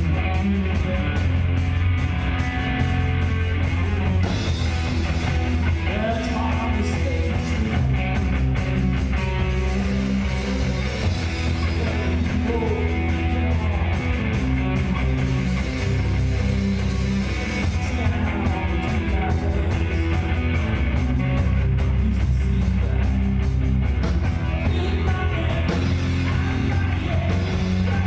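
Live rock band playing through a bar PA: electric guitars over bass and a drum kit, with the singer's voice at times.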